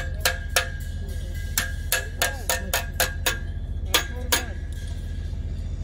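A ratchet wire strainer on a steel fence post being cranked to tension the line wire: about a dozen sharp metallic clicks in an irregular run, some ringing briefly, stopping about four and a half seconds in. A steady low rumble runs underneath.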